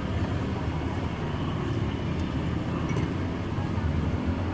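Steady low vehicle rumble, even throughout with no distinct knocks or changes.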